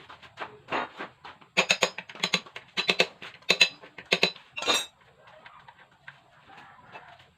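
Metal tools and motorcycle engine parts clinking and tapping together: a quick run of sharp clinks, each with a short ring, from about a second and a half to five seconds in.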